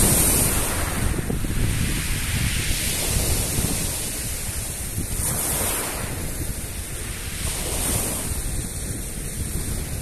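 Black Sea surf breaking and washing in at the water's edge, swelling about every two to three seconds, with wind buffeting the microphone.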